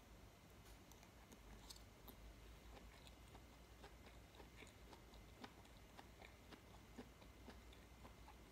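A person chewing a mouthful of rice, faint and close, with many small wet mouth clicks.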